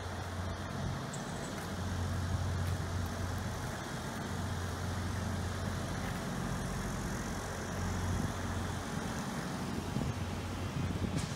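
Steady low engine hum with traffic noise.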